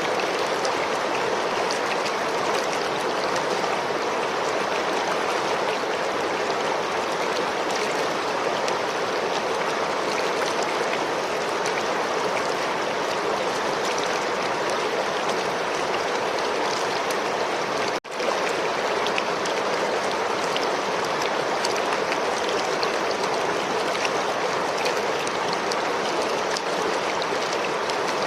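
River water flowing in a steady, even rush. It cuts out for a split second about eighteen seconds in, then carries on unchanged.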